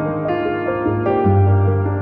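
Calm background music with slow, sustained notes that change every half second or so, and a deep bass note coming in a little past halfway.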